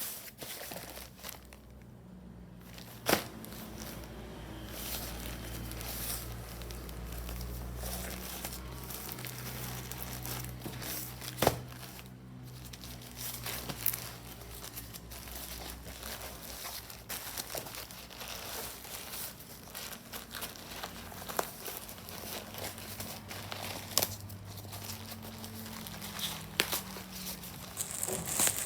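Plastic packaging crinkling and rustling as a sling bag is unwrapped from it, with a few sharp clicks or snaps, the loudest about 3 and 11 seconds in.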